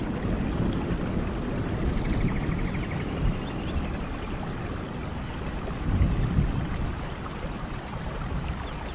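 Steady rain with swelling low rumbles, the strongest about six seconds in. Faint high chirps come in short runs of three or four, about four seconds in and again near the end.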